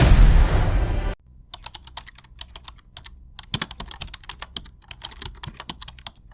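Music that cuts off about a second in, followed by a rapid, irregular run of clicks like keys being typed on a keyboard.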